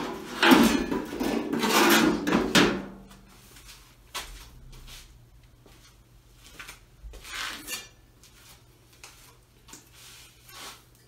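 Old 1936 Chevy steel fender scraping and clanking against a steel workbench top as it is turned and set upright, lasting about two and a half seconds. Lighter clicks and clinks follow as a flat steel repair section is picked up and handled.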